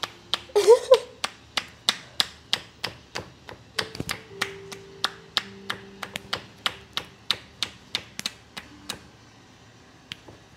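Hands striking a body in a percussive massage: quick, even taps and slaps at about four a second that die away about nine seconds in. A brief voice cuts in about half a second after the start.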